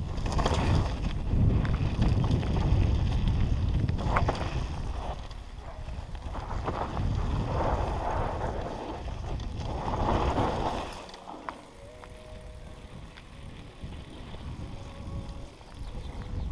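Downhill mountain bike descending a dirt trail: wind buffeting the helmet-camera microphone, tyres rolling over dirt and gravel, and the bike rattling over bumps. About eleven seconds in it gets quieter and a faint steady whine comes in.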